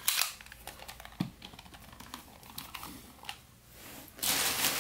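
Light plastic clicks and taps from a hand handling a Ben 10 Omnitrix toy. A little after four seconds in, a much louder rustling noise starts.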